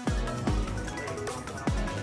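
Music with a heavy beat: deep bass-drum hits that drop in pitch on each stroke, over synthesised tones.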